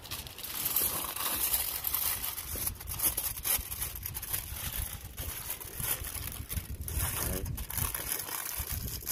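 Aluminium foil crinkling and rustling in irregular bursts as it is folded, creased and pressed shut into a parcel by hand.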